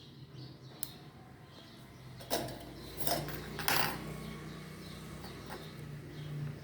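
Small hard objects clattering on a work surface in three short bursts around the middle, over a steady low hum.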